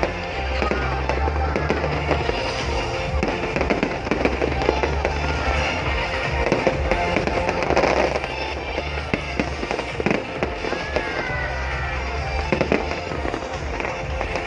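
Fireworks display: a dense run of bangs and crackling from aerial fireworks, heard over loud music with a steady bass.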